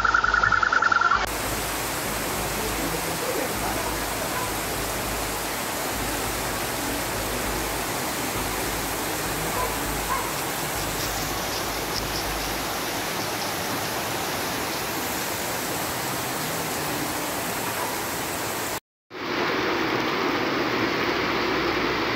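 Floodwater rushing in a torrent down a street, a steady, even roar of water. A car alarm's steady tone cuts off about a second in. Near the end, after a brief break, heavy rain pours onto a flooded street.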